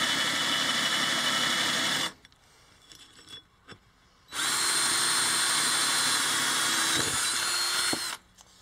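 Cordless drill boring through a metal plate: it runs steadily for about two seconds, stops, then runs again for about four seconds with a steady whine before cutting off.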